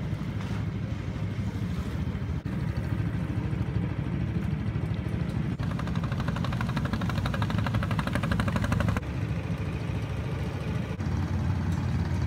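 Small wooden river boat's motor running steadily, a low drone. In the middle few seconds a faster, brighter rattle joins it, and the sound jumps abruptly at a few points.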